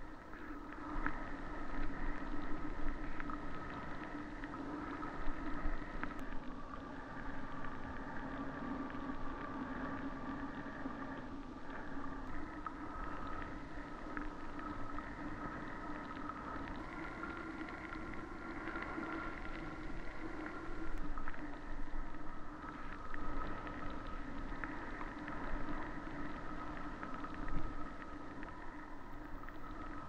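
Skis running fast through fresh powder on a downhill run, with wind rushing over the camera microphone in a steady roar. A few faint tones drift slowly in pitch through the rush.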